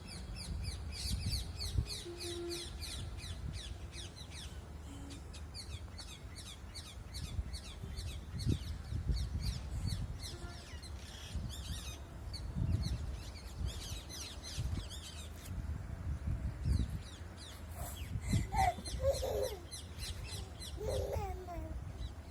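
Birds chirping, a dense run of quick short chirps, several a second, with a low rumble underneath. A few lower sliding calls come near the end.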